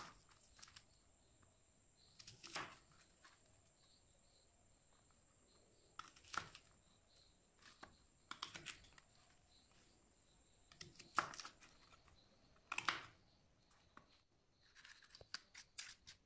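A kitchen knife cutting through raw onions on a banana leaf: a faint, crisp crunch every couple of seconds, about six cuts, with quiet between them.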